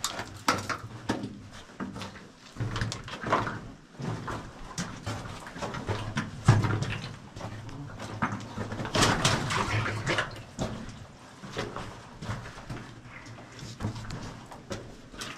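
Footsteps crunching and scuffing over the rocky, wet floor of an old mine tunnel, with irregular knocks and a longer scraping, splashy stretch near the middle, under a person's breathing.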